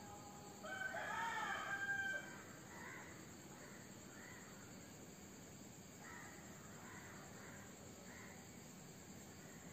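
A rooster crows once, a pitched call of about a second and a half near the start. Afterwards faint short bird calls repeat every second or so over a steady high chirring of crickets.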